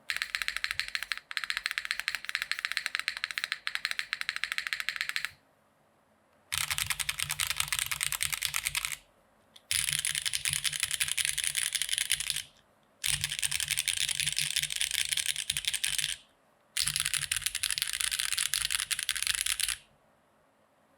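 Fast typing on a Hand Engineering Haus custom mechanical keyboard: Gateron X R1 switches, lubed and filmed, on an O-ring-mounted aluminium plate, with GMK Hammerhead keycaps. Five runs of rapid keystrokes with short pauses between them.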